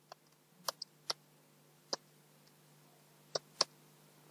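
Computer keyboard keys clicking as a name is typed: about seven sharp, separate clicks at uneven intervals, over a faint steady hum.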